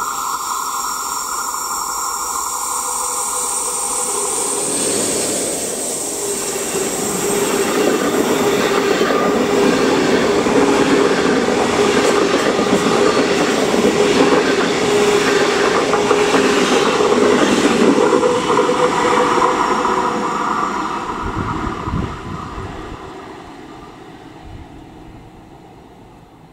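A DB Class 103 electric locomotive hauling a rake of TEE coaches passes close by. A steady whine as it approaches gives way about five seconds in to the loud rolling noise and clickety-clack of the coaches' wheels on the rails, which fades from about twenty seconds as the train draws away.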